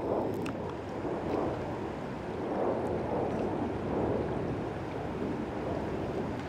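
Wind buffeting the microphone in uneven gusts over the steady rush of the river's current along a cobble shore.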